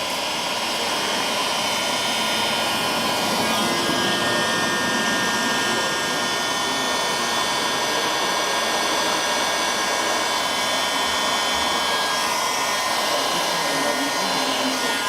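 Electric heat gun blowing steadily, a hair-dryer-like rush of air with a faint motor whine, cutting off at the end.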